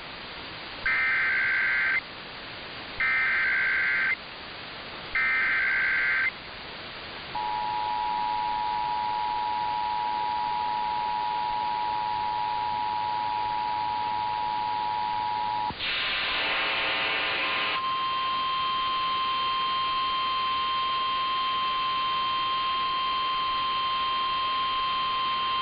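Emergency Alert System alert tones: three one-second bursts of SAME header data warble, then the two-tone EAS attention signal held for about eight seconds. After a brief harsh buzz comes a steady single-tone alarm of the NOAA Weather Radio warning kind, lasting about nine seconds.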